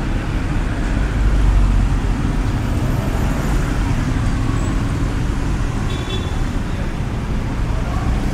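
City street traffic: a steady low rumble of passing motor vehicles, loudest about a second in, with background voices and a brief high tone about six seconds in.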